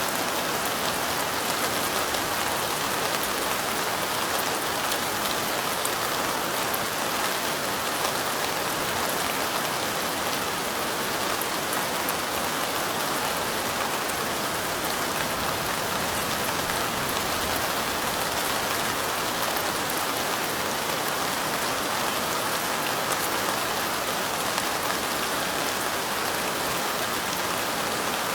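Steady light rain: an even hiss with a fine patter of drops, unchanging throughout.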